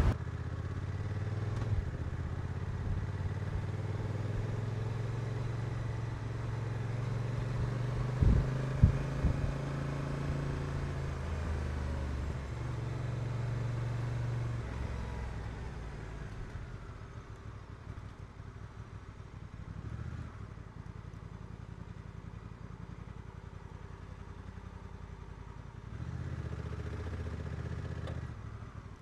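Honda NT1100's parallel-twin engine running at road speed. Its note drops and quietens about halfway through as the bike slows, and picks up briefly near the end. A few thumps sound around eight seconds in.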